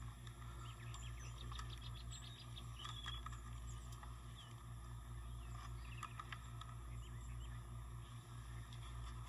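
Small birds chirping and twittering here and there over a steady low hum, in a quiet outdoor setting.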